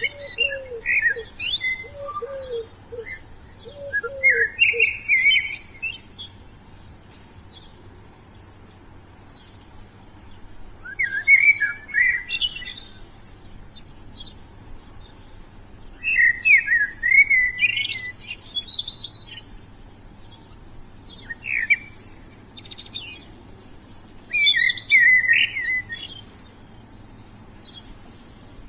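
Wild songbirds singing in short, quick chirping phrases that come every few seconds with brief pauses between. In the first five seconds a lower call repeats about five times under the song.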